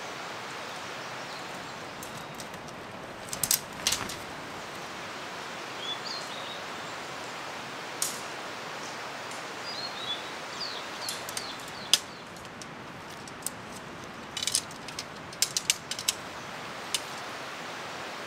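Steady rush of a valley stream with a few short bird chirps. Scattered sharp clicks and taps come through it, the loudest about twelve seconds in and a quick cluster shortly after.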